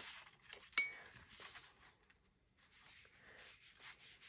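Faint sounds of watercolour painting: soft brush and paper rustles, with one light clink that rings briefly just under a second in, the brush knocking against a container.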